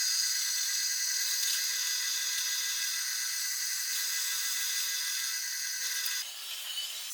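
Electric angle grinder running with a steady high-pitched whine. About six seconds in, the whine drops abruptly into a rougher, noisier sound.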